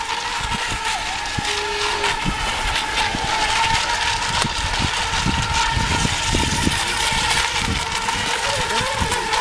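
Several electric RC racing boats running at speed around the course, giving a steady high whine.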